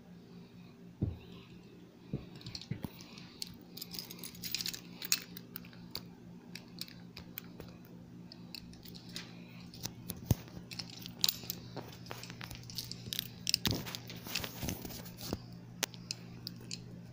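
Handling noise from a phone held close: irregular rustles, scrapes and sharp clicks as it is moved about and rubbed against clothing, over a steady low electrical hum.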